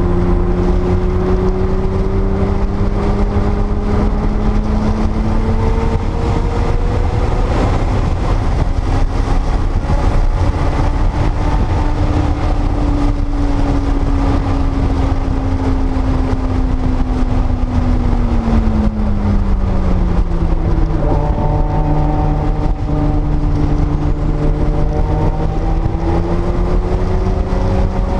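A 1979 Porsche 930 Turbo's turbocharged air-cooled flat-six under load on track, its pitch climbing slowly, shifting about seven seconds in, dropping away around two-thirds of the way through, then climbing again near the end. A heavy low rumble of wind and road noise runs underneath.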